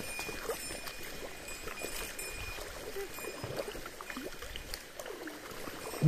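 Shallow stream water running and splashing, with scattered small splashes.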